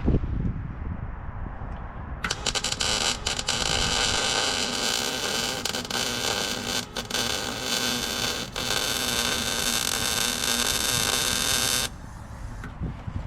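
Eastwood MIG 135 welder running a weld bead: the arc crackles steadily for about ten seconds, starting about two seconds in and cutting off suddenly near the end. Wind noise on the microphone before the arc strikes.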